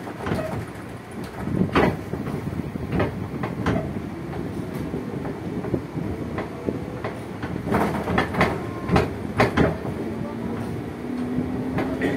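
Running noise inside a motor car of a JR 205 series electric commuter train under way: a steady rumble of wheels on rail, with sharp clacks as the wheels cross rail joints. The traction motors' whine rises slowly in pitch over the last couple of seconds.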